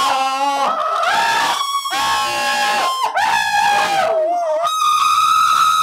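Two men screaming at full voice: long, sustained, high-pitched yells that waver and glide in pitch, one after another with short breaks for breath.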